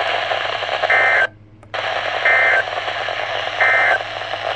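NOAA Weather Radio SAME end-of-message data bursts: three short, warbling two-tone electronic bursts about a second and a half apart, marking the end of the severe thunderstorm watch message. They play over steady radio receiver hiss, which cuts out briefly just after the first burst.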